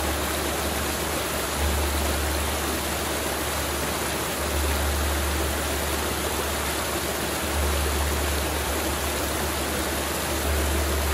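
Mountain river flowing: a steady, even rush of water, with a deep low rumble beneath it that drops out briefly about every three seconds.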